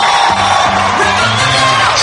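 Stage-show music playing, with an audience cheering and whooping over it.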